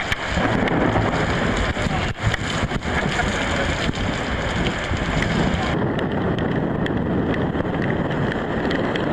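Wind buffeting the microphone, with rain and rushing water on the deck of an ocean racing yacht under sail in a squall. A few sharp knocks are heard, and the sound turns duller about six seconds in.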